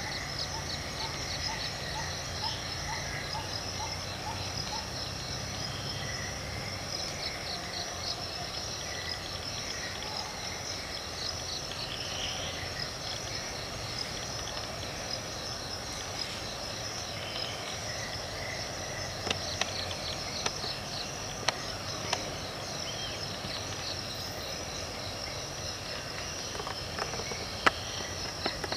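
Forest insect chorus: a steady high-pitched drone with a rapid pulsing trill just beneath it. A few sharp snaps sound in the second half.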